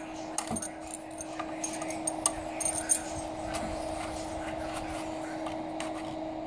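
Coax cables and their metal connectors being handled and hooked up, light metallic clicks and clinks mostly in the first three seconds, over a steady hum.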